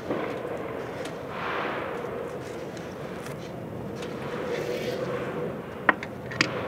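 Steady outdoor city background noise with a faint, even hum and slow swells, broken by two sharp clicks near the end.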